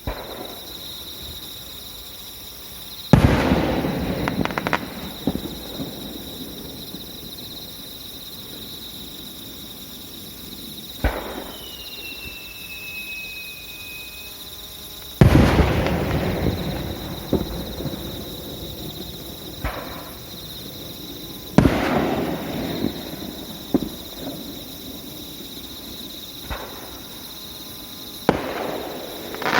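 Aerial firework shells bursting: four loud booms, each trailing off in crackles and rolling echoes, with smaller pops between them and a brief thin whistle about twelve seconds in.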